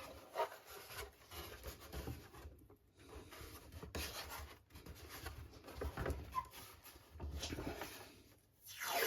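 Faint, irregular rubbing and soft knocks of wooden model-kit parts being handled on the workbench, with a sharper knock near the end.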